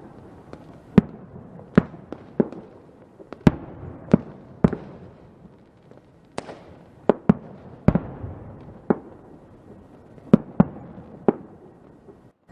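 Fireworks going off: about fourteen sharp bangs at uneven intervals, roughly one a second, over a continuous rumble and crackle, with a brief lull midway.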